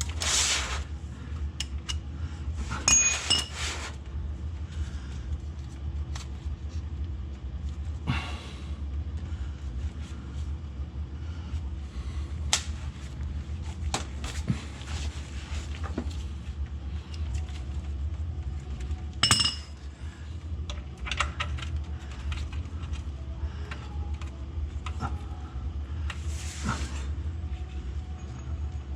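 Scattered metal clinks, taps and a few short scrapes of a wrench working the loosened oil drain plug under a car, over a steady low hum.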